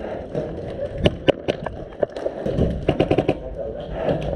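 Airsoft guns firing: a few single sharp shots about a second in, then a quick rapid burst near three seconds in.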